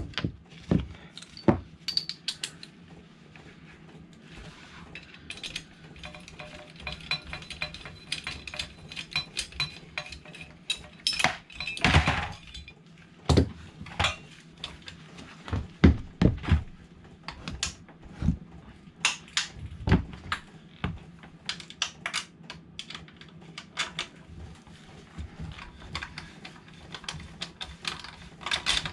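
Hand tools and metal fittings clinking and knocking against a motorcycle's engine and frame as the engine-mount bolts are worked loose, in irregular clicks and clatters, loudest in a few clusters near the middle.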